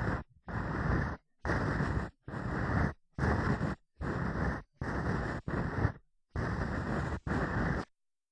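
Ear-cleaning strokes rubbing and scraping close against the microphone: about ten separate strokes, each under a second, one after another. They stop about a second before the end.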